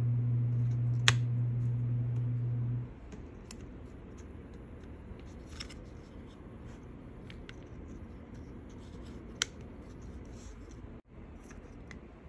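Scattered small clicks and taps as a replacement MacBook Pro speaker module and its plastic housing are handled and pushed into place, with two sharper clicks, one about a second in and one near the end. A steady low hum runs underneath for the first three seconds, then cuts off.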